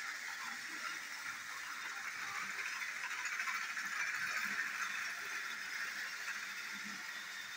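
Battery-powered toy train running around a plastic track: a steady small-motor whir with the wheels rattling on the rails, growing a little louder midway.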